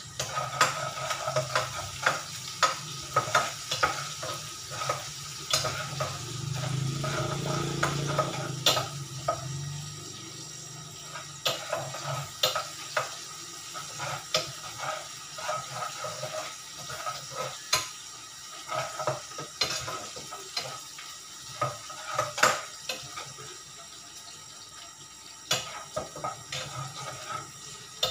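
Food being stirred in a pan, the utensil clacking and scraping irregularly against the pan over a light sizzle.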